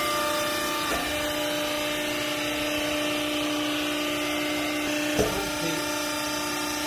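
Hydraulic power unit of a vertical used-clothes baler running steadily: a constant electric-motor and pump hum at several fixed pitches. A short knock comes about five seconds in.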